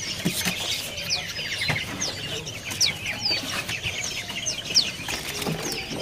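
Caged birds chirping: many short, high chirps that slide down in pitch, overlapping throughout, with a few light knocks and wing flutters from a bird hopping about its wooden cage.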